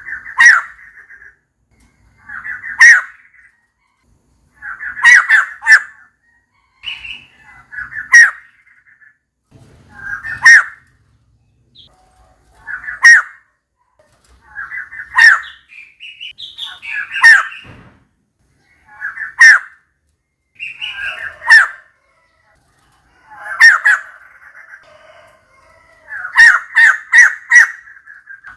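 Female white-crested laughingthrush calling: short calls repeated about every two seconds, with a quicker run of several notes near the end.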